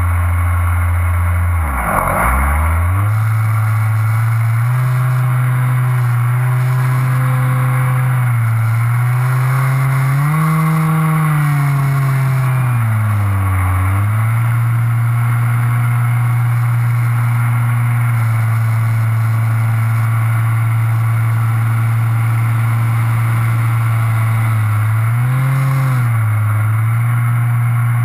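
Propeller engine of a small aircraft droning in flight, its pitch dropping sharply and climbing back about two seconds in and again around thirteen seconds, with gentler rises and falls in between.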